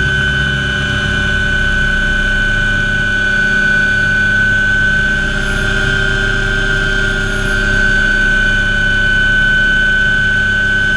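MD 500 helicopter in flight heard from inside its cockpit: the Allison 250 turboshaft gives a steady high whine over the low, rapid beat of the main rotor.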